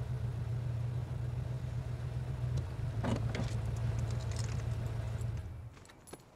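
Car engine and road rumble heard from inside the cabin while driving, falling away about five and a half seconds in as the car comes to a stop, leaving it much quieter with a single click near the end.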